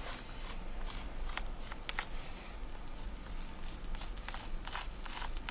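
A lump of ochre pigment scraped across a rough rock face, drawing an outline: a series of short, dry scratches at irregular intervals.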